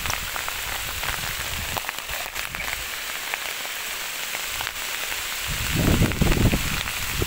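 Heavy rain falling on a sugarcane field: a steady hiss with scattered sharp drop hits close by. A low rumble swells on the microphone about six seconds in.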